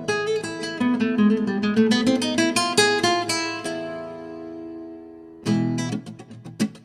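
Background music: acoustic guitar picking a quick melody, a note left ringing and fading, then strummed chords from about five and a half seconds in.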